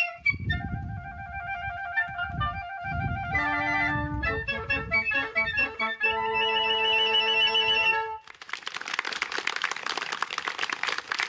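Small wind ensemble of French horn, clarinet and bass clarinet playing held notes and a moving melody, with a low rumble under it in the first few seconds. About eight seconds in the music breaks off and a dense crackling, hissing noise takes over for about three seconds.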